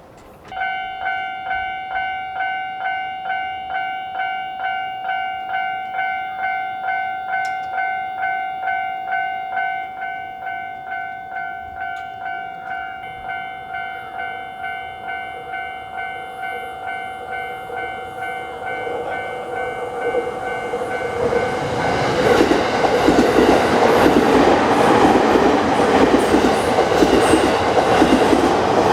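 Japanese level-crossing warning bell starts ringing about half a second in, a rapid, evenly repeated 'kan-kan' ding, a little quieter from about ten seconds in. From about twenty seconds a train approaches and passes close by, its rumble and wheel clatter building and then drowning out the bell.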